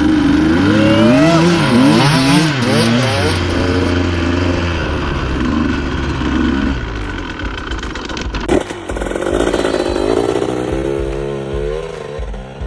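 Dirt bike engine revving up and down in the first few seconds, then running more steadily. About eight and a half seconds in the sound changes suddenly to another stretch of wavering engine revs.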